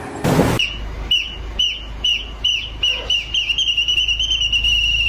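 A short loud burst of noise, then an electronic alarm chirps about twice a second with a high falling tone. It switches to a fast warble for the last couple of seconds and stops near the end. A steady low engine rumble runs underneath.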